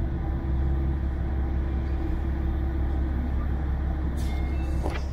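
Diesel railcar engine idling steadily with a low hum, heard from inside the passenger cabin while the train stands at a station. A short hiss comes in near the end.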